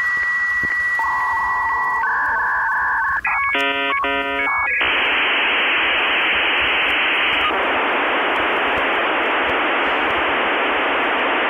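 Dial-up modem handshake: a steady high tone, then shifting and stepped electronic tones, then a long even hiss from about five seconds in.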